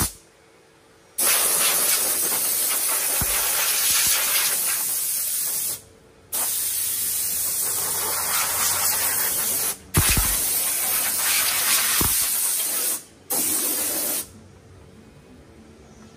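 A hose nozzle spraying into a car's engine bay in four hissing bursts, each switched on and off abruptly; the first three are long and the last is short.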